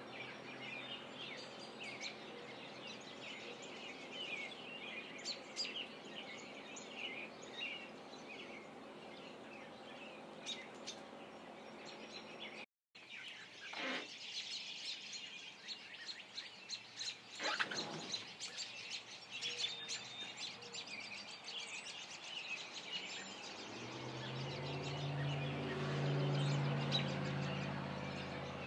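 Birds chirping and calling in many short notes over a steady background hiss, cutting out for an instant about halfway. A low steady hum comes in and swells near the end.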